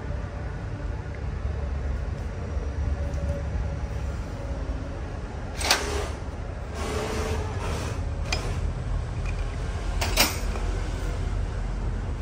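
Gearbox parts being handled during a teardown: two sharp knocks about six and ten seconds in, a lighter click and some scraping between them, over a steady low hum.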